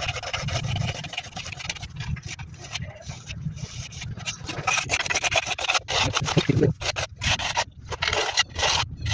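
A hand tool scraping along fresh cement plaster beside a straight edge, cutting groove lines into the wall render in repeated uneven strokes.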